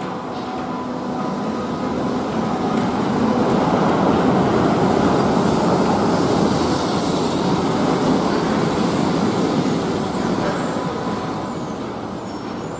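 A Wuppertal Schwebebahn suspended monorail car, an older Baureihe 1972 unit, running into a station on its overhead rail. The running noise swells to its loudest about halfway through, then eases as the car slows along the platform.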